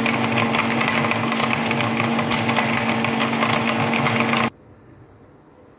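Electric blender running at a steady pitch, blending jaggery, mint and lemon with water into a frothy drink, then switched off and cutting out suddenly about four and a half seconds in.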